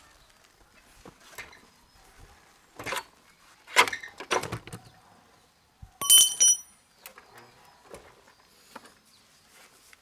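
Metal parts being handled: a few knocks, then a short metallic ring about six seconds in, like a struck metal piece.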